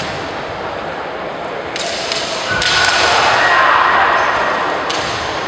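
Kendo bout: sharp clacks of bamboo shinai and stamping feet on a wooden floor, a few single hits, followed by a loud drawn-out shouted kiai from about two and a half seconds in that fades before the end.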